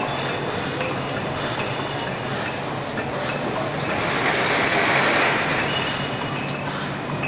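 Vodka bottling line machinery running: a rotary capping machine and a bottle conveyor give a steady mechanical hum with scattered light clicks. A louder hiss swells about four seconds in and fades about a second and a half later.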